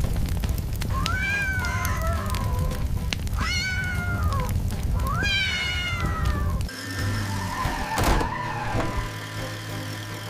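Kitten meowing in distress three times, each cry about a second long, rising then falling in pitch, over a steady low rushing noise. After about seven seconds the meows and rushing stop and a different sound with a sliding pitch takes over.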